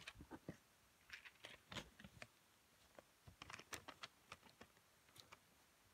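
Faint, irregular clicks and rustles of a phone being handled and moved about, in loose clusters.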